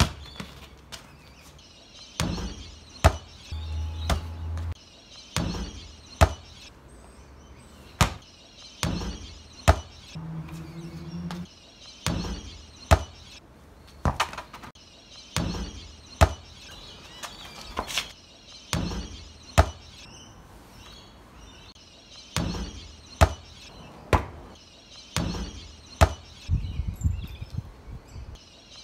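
A rubber ball being kicked and bounced on brick paving: a long run of sharp thuds at irregular intervals, roughly one every second.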